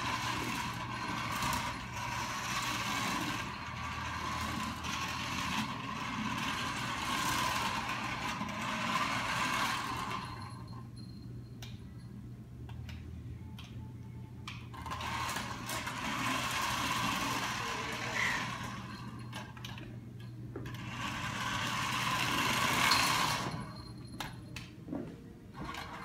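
Small toy remote-control car's electric motor and gears whirring as it drives, in long spurts that stop for a few seconds about ten seconds in and twice more near the end.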